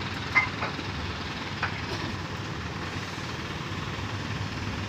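Boom truck's engine idling steadily, with a sharp knock about half a second in and a fainter one a little later.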